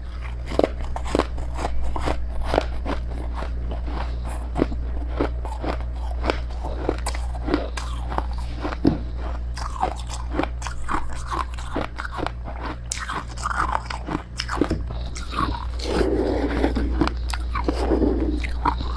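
Close-miked biting and chewing of powdery freezer frost: a continuous run of sharp crunches, with thicker grinding chews near the end, over a steady low hum.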